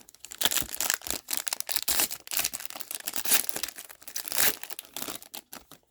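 Plastic wrapper of a hockey card pack being torn open and crinkled by hand, a dense run of irregular crackles.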